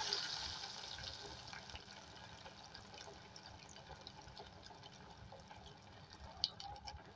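Hot oil sizzling around a breadcrumb-coated potato packet that has just been dropped in to deep-fry. The sizzle dies down over the first couple of seconds to a steady lower hiss with small crackles, and one sharper pop comes near the end.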